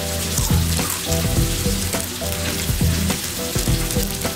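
Egg-and-flour batter for egg chips sizzling as it fries in shallow hot oil in an aluminium pan, a steady crackling hiss. Background music with a repeating bass pattern plays underneath.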